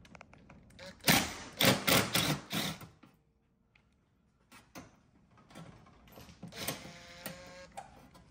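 Cordless power driver running in short bursts on the bolts under a car's rear bumper. The loudest is a rapid clattering burst about a second in, and a steadier motor hum comes near the end.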